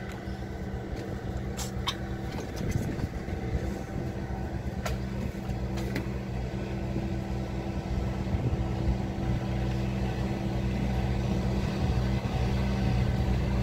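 An engine running steadily with a low, even hum that slowly grows louder, with a few light clicks in the first six seconds.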